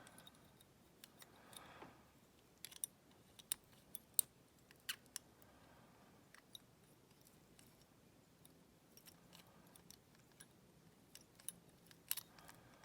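Faint, irregular metallic clicks and taps of wire picks working inside a five-lever padlock, with a little soft handling rustle now and then.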